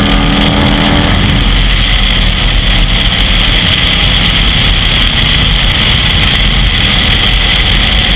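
Cruiser motorcycle riding at speed, heard from the rider's seat. A steady engine note fades out about a second in, leaving a loud rush of wind on the microphone over a low engine rumble.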